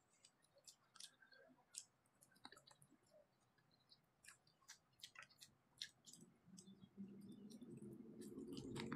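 Faint eating sounds: scattered light clicks of chopsticks against a food container, with chewing. A low hum comes in over the last two or three seconds and grows louder.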